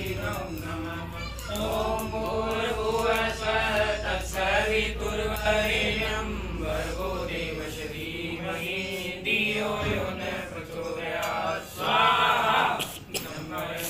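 Voices chanting havan mantras together in a steady, continuous flow while offerings are made into the sacred fire.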